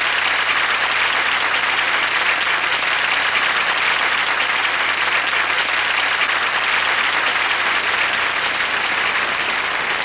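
Studio audience applauding steadily at the end of a song, a dense even clapping that stops suddenly near the end.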